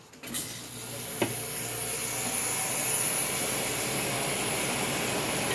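2001 Carrier window air conditioner switched on: the fan spins up and a steady rush of air with a hiss builds over the first few seconds, then holds level. A single click about a second in.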